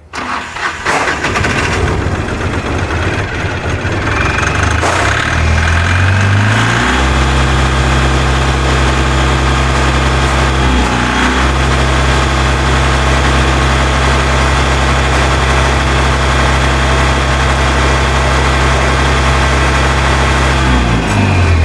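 Mahindra Maxximo's two-cylinder diesel engine starting up, unsettled and rising for several seconds, then settling into a steady idle about seven seconds in.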